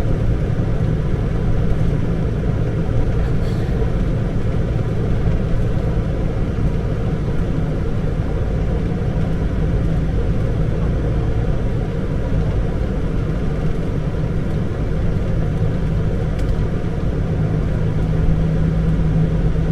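Truck engine running steadily, a continuous low drone.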